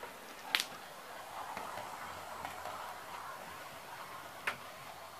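Dapol model locomotive running along the layout track: a faint steady hum from the motor and wheels, with a sharp click about half a second in and another near the end.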